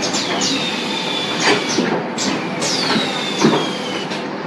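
Automatic shrink-wrapping packing line running. Steady machine noise is broken by a series of short whistles that each fall in pitch, and a couple of sharp knocks.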